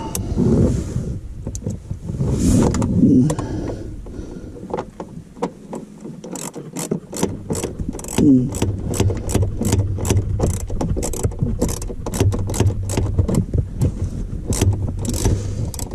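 Ratchet wrench clicking as it works the nut on a ground-wire terminal, a long run of sharp clicks, two or three a second, starting about six seconds in, after some handling knocks at the start.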